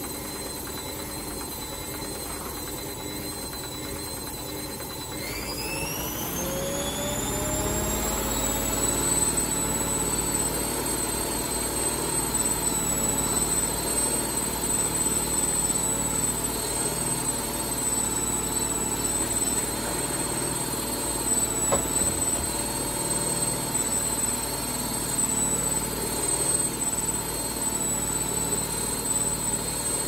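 Indesit Moon washing machine's drum motor, run from an SXY3388 universal controller, speeds up into spin about five seconds in with a rising whine. It then keeps spinning with a steady high whine and a rumble whose loudness wavers, the glitchy spin of the title.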